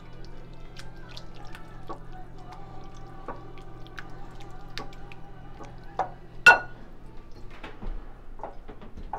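Cream cheese and butter being mashed and stirred with a silicone spatula in a glass mixing bowl: soft wet squishing and scattered small clicks. One sharp knock against the glass comes about six and a half seconds in.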